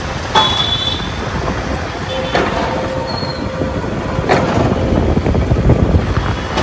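Metal screw-type juicing machine crushing pineapple pieces: a steady grinding churn, with a few knocks as the pieces are pushed down into the hopper with a wooden plunger.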